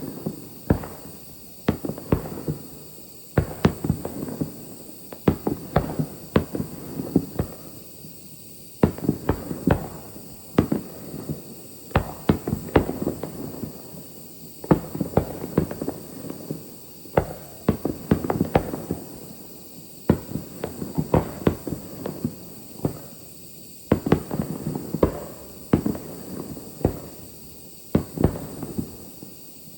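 Aerial fireworks bursting: dozens of sharp bangs coming in quick clusters every few seconds, with a rumbling echo between the bursts.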